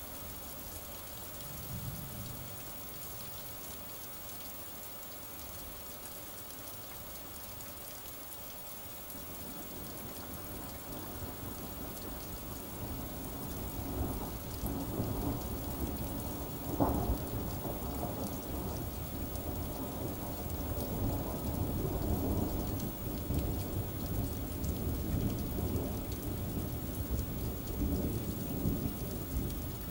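Steady rain hissing, with thunder: a low rumble builds about a third of the way in, a sharp crack of thunder comes just past halfway, and long rolling rumbles follow.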